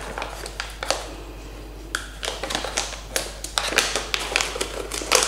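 Plastic snack bag of wasabi-coated green peas crinkling and crackling as it is torn open by hand. The crackles come thicker and louder in the second half.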